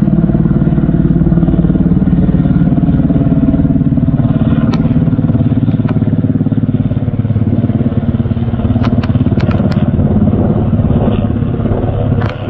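Sikorsky UH-60M Black Hawk helicopter passing low overhead: a steady, rapid beat from its main rotor blades over the drone of its twin turboshaft engines.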